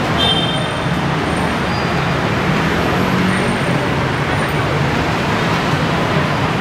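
Steady city road traffic: a continuous low rumble of engines and tyres from cars, vans and motorbikes on the road beside the pavement.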